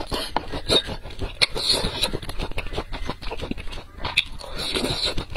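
Close-miked chewing of crunchy lotus root slices: a rapid run of crunches, clicks and wet mouth sounds, with a louder, wetter stretch near the end.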